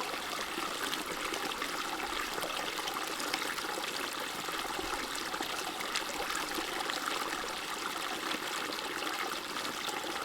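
Small stream running, a steady trickling hiss without the wind buffeting the microphone.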